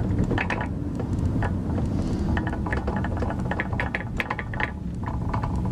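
Steady low rumble of a car in motion, heard from inside a plastic pet carrier, with light, irregular clicking and rattling.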